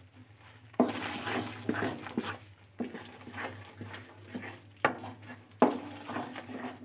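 Wooden spatula stirring and scraping a thick paste of ghee-roasted gram flour and semolina around a steel kadai, with a few sharp knocks against the pan.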